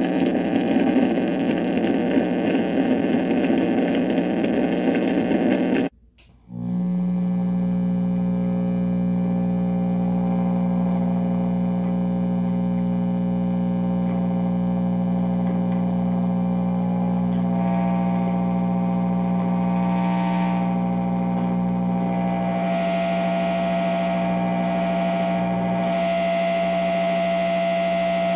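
Contact-microphone signal from a stovetop pot of eggs played through a distorted guitar amplifier. A dense crackling noise cuts out sharply about six seconds in, then comes back as a steady drone of layered tones. A higher steady tone and more hiss grow in over the last third.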